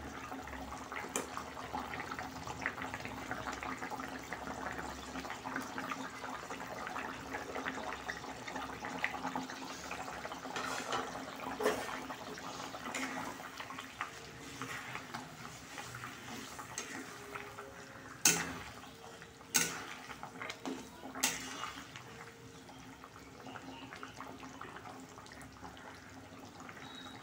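Curry gravy bubbling at a simmer in a kadai over a steady low hum, while a metal spatula stirs the dhoka pieces; about two-thirds of the way through, the spatula knocks sharply against the pan three times.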